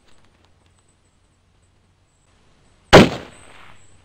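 A single rifle shot from a Savage 12 LRP in .260 Remington, about three seconds in: one sharp crack that dies away over nearly a second.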